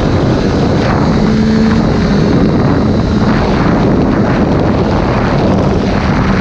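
Triumph Daytona 675R's inline three-cylinder engine running steadily at track speed, heard from an onboard camera, with heavy wind rush over the microphone.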